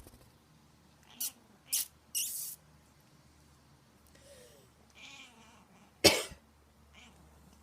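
A person giving short mock coughs, three in quick succession about a second in and one louder cough about six seconds in, with a house cat answering in faint, short meows between them.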